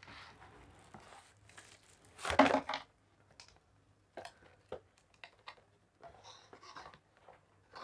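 Packaging being handled while a hair dryer is unpacked: crinkling and rustling of the wrapping, with one louder rustle about two seconds in, then scattered light clicks and taps.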